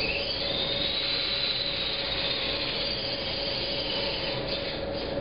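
VEX robot motors and gearing turning the air cannon's turret: a steady electric motor whine that rises in pitch about a second in, then holds and eases off near the end.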